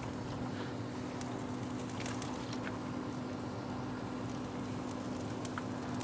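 Pump spray bottle misting ribs on an open pellet grill: a soft, steady hiss with a few faint ticks, over a steady low hum.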